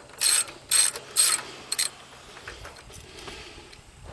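Hand ratchet driver with a socket and extension clicking in quick back-strokes, four strokes about half a second apart, then a few faint clicks. The ratchet is set to loosen and is backing out the carburetor's bottom mounting screw on a small engine.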